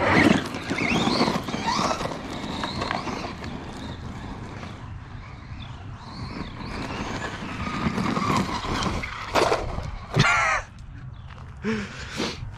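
Brushless RC truck running hard on a 3D-printed PLA spur gear, its motor whine swelling and dropping with the throttle over a steady noisy haze. A few short, loud pitched sounds come about ten seconds in.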